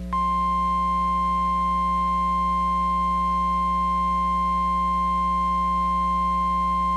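NOAA Weather Radio warning alarm tone: a single steady 1050 Hz tone that switches on a moment in and holds, signalling that a warning message follows, here a tornado warning. A low steady hum runs underneath.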